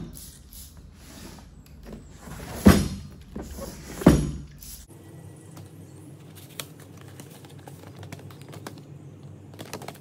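A cardboard box being handled and opened: two loud knocks about three and four seconds in, then light clicks and the rustle of cardboard and paper as the packing and manual are pulled out.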